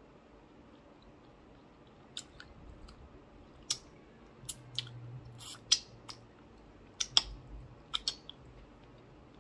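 Mouth sounds of a person eating with their hands: chewing, with sharp wet smacks and pops as she licks and sucks food off her fingers. The smacks come in an irregular scatter from about two seconds in until near the end.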